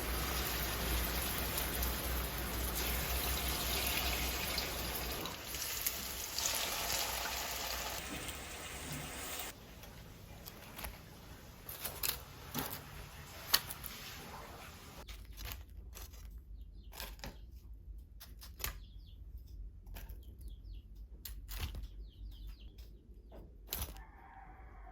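Water running or pouring for about the first nine seconds, then stopping, followed by scattered light clicks and knocks.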